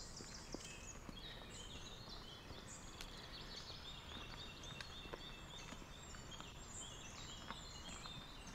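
Several songbirds singing in a conifer forest: many short, high, repeated notes and trills overlapping throughout, over a faint steady outdoor hiss. A few faint taps on the stony trail are heard now and then.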